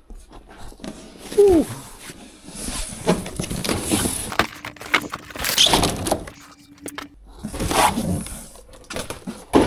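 Cardboard bike box being torn and pulled open by hand, in several ripping, scraping bouts, with a brief squeak about one and a half seconds in.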